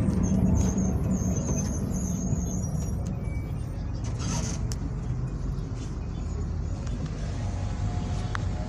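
Mercedes-Benz OF-1722M city bus's front-mounted diesel engine running with a steady low drone, together with the growl of its cardan driveshaft. The drone eases off over the first few seconds and then holds steady.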